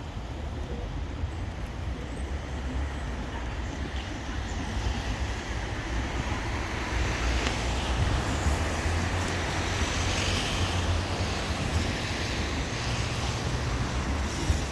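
Wings of a large flock of pigeons fluttering, swelling to a rush in the middle, over a steady low rumble.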